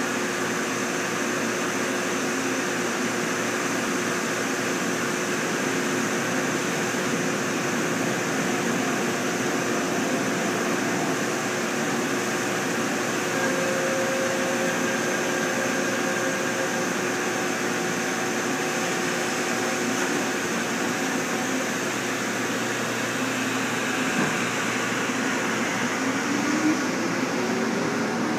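Seoul Metro 1000 series resistor-controlled electric train pulling slowly out of the station: a steady hum of motors and rooftop equipment with several held tones. Near the end one tone rises in pitch as the train picks up speed.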